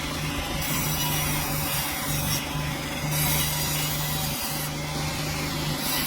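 A sawmill cutting through a dense hardwood log. The saw's noise runs steadily over a low motor hum that drops out and comes back every second or so.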